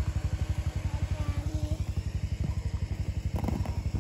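ATV engine idling with a rapid, even low throb. A brief rattle about three and a half seconds in.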